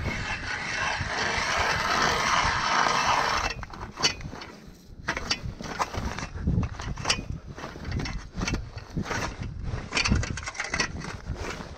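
Ice auger boring through thin first ice: a steady grinding scrape for about three and a half seconds, then a series of irregular knocks and crunches of ice as the auger is worked and lifted out of the hole.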